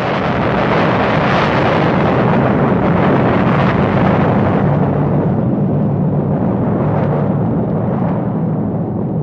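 Loud, sustained rushing rumble of an eruption or explosion sound effect. Its hiss thins somewhat over the second half while the low rumble holds.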